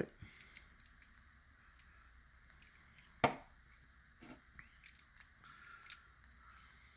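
Faint clicks and taps of a small die-cast toy car being turned over in the fingers, with one sharp click about three seconds in.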